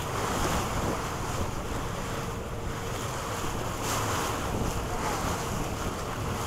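Wind buffeting the microphone aboard a moving boat, with the steady wash of choppy water against the hull.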